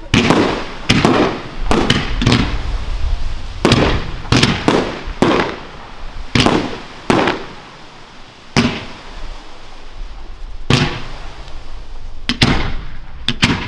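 Fireworks going off: a rapid, irregular series of sharp bangs as shots fire and burst, over a continuous hissing crackle. The bangs come thick and fast at first, then thin out in the second half.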